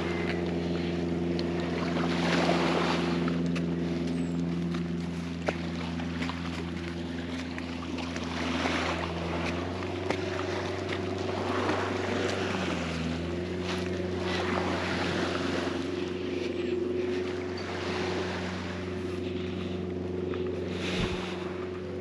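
Motorboat's outboard motor running steadily, its note shifting slightly about ten seconds in and again a few seconds later, with recurring washes of water and wind hiss.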